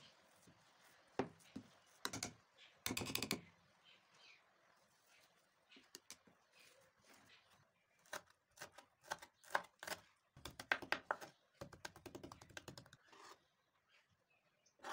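A metal potato masher knocking and squashing boiled potatoes in a ceramic bowl, then a knife chopping fresh coriander on a wooden cutting board in quick runs of taps through the second half.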